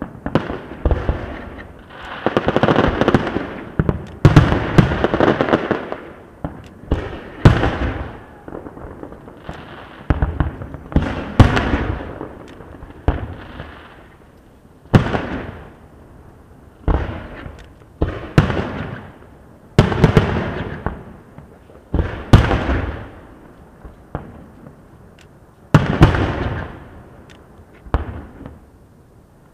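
Aerial fireworks shells bursting one after another, roughly one every one to two seconds. Each is a sharp bang that trails off into a long rolling rumble, with a thicker run of overlapping bursts a couple of seconds in.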